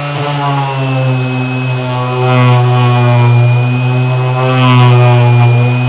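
Metabo SXE 450 Turbotech random orbital sander running at speed with 120-grit paper on its 3 mm orbit: a steady motor hum with a thin high whine, getting somewhat louder about two seconds in as it works a painted surface.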